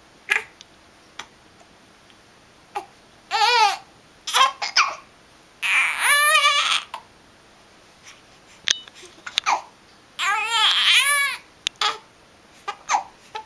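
Someone with hiccups making high, wavering crying and babbling sounds in several bursts, the longest lasting over a second. Short, sharp hiccups fall between the bursts.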